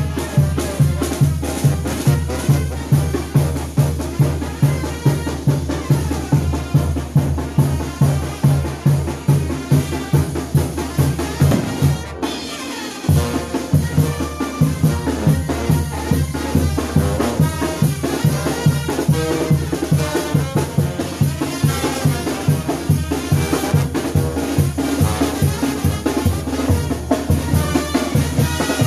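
Mexican brass banda playing as it marches: sousaphone bass line with bass drum and snare keeping a steady beat of about two strokes a second, and brass over it. The band breaks off briefly about twelve seconds in and picks up again.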